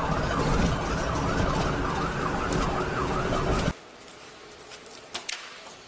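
Emergency vehicle siren in a fast up-and-down yelp over a low vehicle rumble, heard from inside the vehicle. It cuts off suddenly after about three and a half seconds, leaving a much quieter background with one faint knock.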